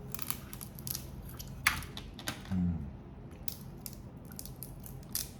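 Grilled shellfish shells cracking and being pulled apart by hand: a run of short, sharp crackles and snaps, the loudest a little under two seconds in.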